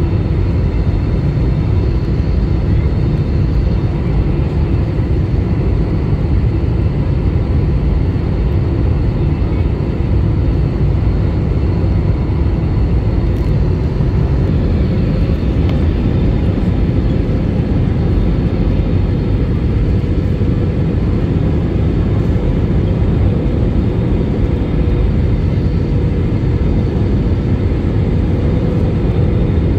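Cabin noise of an airliner descending to land: jet engines and rushing air make a steady low rumble, with faint steady whining tones over it.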